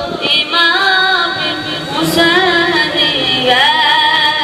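A boy singing a devotional manqabat solo and unaccompanied into a microphone, in long held notes that waver and slide between pitches.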